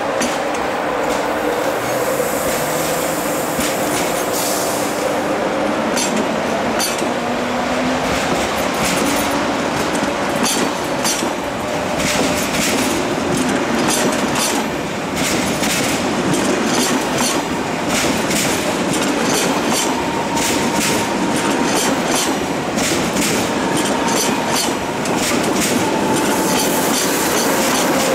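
A train running by on the rails: a steady loud rumble with wheels clicking over rail joints throughout.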